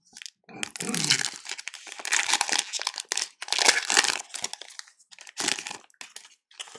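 Foil wrapper of a Panini Absolute Memorabilia basketball card pack crinkling and tearing as gloved hands rip it open. The rustling comes in several bursts, mostly in the first four seconds, with a shorter one later.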